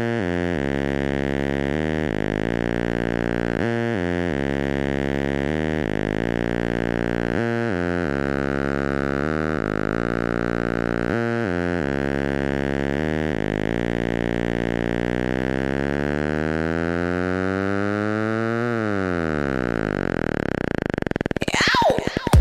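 Electronic music intro on synthesizer: sustained chords changing about every two seconds, then from about two-thirds of the way through, tones gliding up and down, and a rising whoosh near the end leading into the beat.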